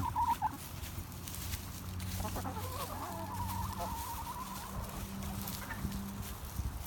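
Backyard hens clucking while they feed, with one drawn-out, wavering call from about two to five seconds in.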